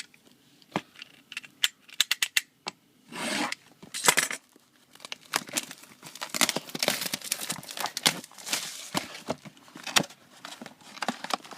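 A sealed box of trading cards being opened: its plastic wrap torn and crinkled. A run of sharp clicks and a couple of short rips come first, then dense crinkling through the second half.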